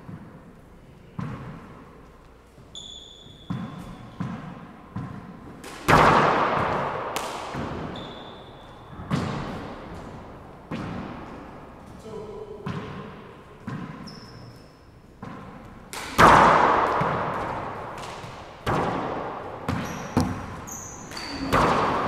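Four-wall handball rally: a rubber handball is smacked by gloved hands and rebounds off the walls and hardwood floor of an enclosed court, each hit ringing with a long echo. The loudest smacks come about six and sixteen seconds in. Short high squeaks of sneakers on the floor fall between the hits.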